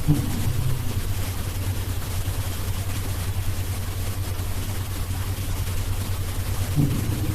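Snoring: a steady low rumble, with a short pitched snort just after the start and again near the end.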